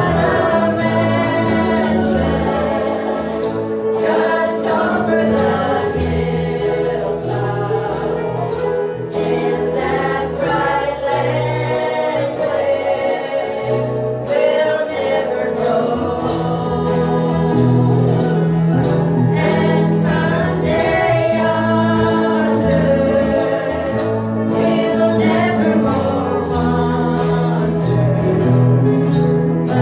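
Women's vocal trio singing a gospel song in harmony, with steady held low notes from the accompaniment underneath.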